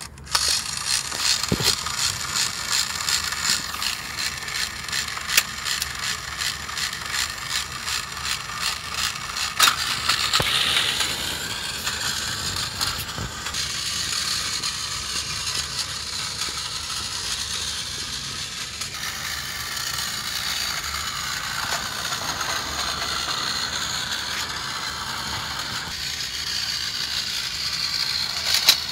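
Battery-powered Tomy Plarail S-46 Doraemon tram switched on and running on plastic track. Its small motor and gears whir, with regular clicking for about the first ten seconds before the run settles into a smoother whir.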